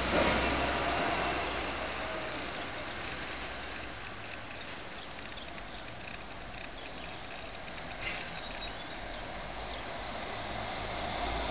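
Outdoor background of distant vehicle noise, a low rumble and hiss that fades over the first few seconds and swells again near the end. A few short, high bird chirps sound over it.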